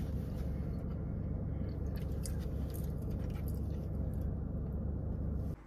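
Steady low rumble inside a car cabin from the car idling, with small clicks and rustles of a paper food box being handled and someone chewing. The rumble cuts off abruptly near the end.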